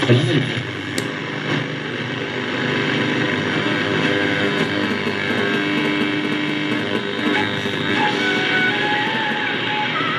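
Shortwave reception from a restored Philips MW/SW radio's loudspeaker: steady static hiss with a faint broadcast in it. Short tones step between pitches in the second half.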